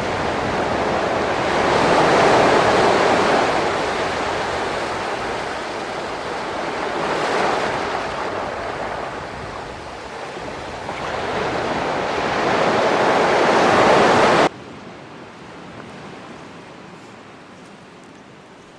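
Sea surf breaking and washing up the beach in three swells, with some wind on the microphone. About fourteen and a half seconds in it cuts off suddenly to a quieter, steady hiss.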